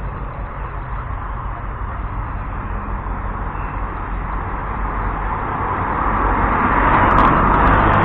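A small hatchback car overtaking close by: its tyre and engine noise swells over a few seconds to a peak near the end, then starts to fade as it pulls away, over a steady low rumble.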